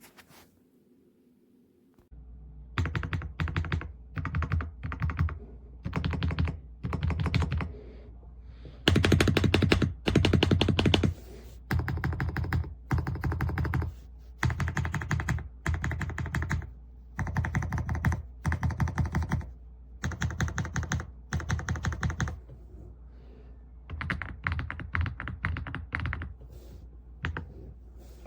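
Typing on an Aula F65 mechanical keyboard with Graywood V3 switches: quick runs of keystrokes in bursts of about a second, with short pauses between them, starting about two seconds in.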